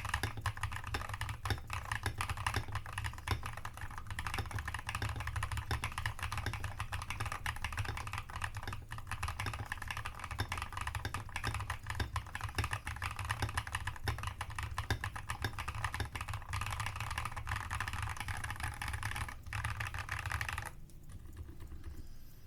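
Fast, continuous typing on an Artnix GK87 custom mechanical keyboard with Mz Z1 switches and MDA-profile keycaps, the keystrokes clacking in quick succession over a steady low hum. The typing stops about 21 seconds in.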